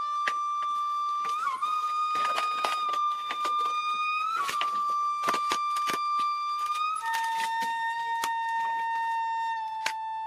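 Irregular blade strikes chopping bamboo, clustered over the first seven seconds, over a long held whistle-like tone that drops to a lower pitch about seven seconds in.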